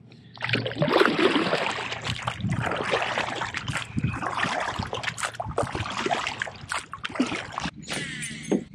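Water splashing and trickling around a kayak, uneven and fairly loud, with many small knocks through it.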